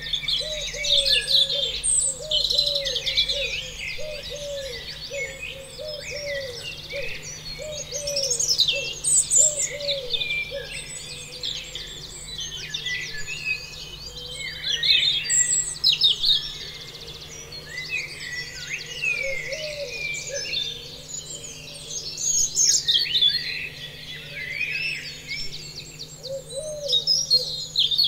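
Several birds singing and chirping at once, quick high calls overlapping throughout. A lower call comes in quick repeated runs now and then.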